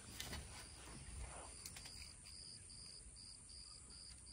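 Faint insect chirping: short high-pitched pulses repeating about four times a second, starting about a second and a half in, over a low rumble.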